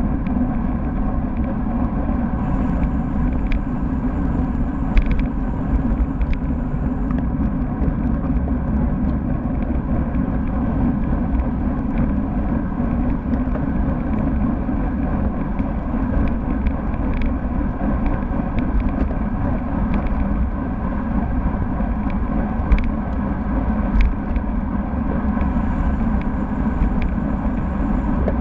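Steady wind buffeting and road rumble on a road bike's mounted camera microphone while riding in a group, with a few small clicks and rattles from bumps in the road.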